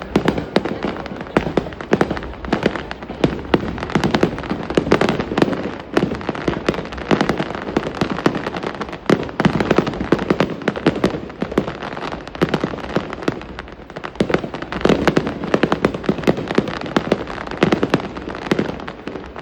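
Aerial fireworks bursting overhead in a dense, continuous run of sharp cracks and pops, many a second.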